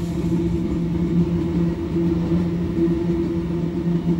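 GE AC44i diesel-electric locomotives passing, their engines running with a steady low drone over a rumble.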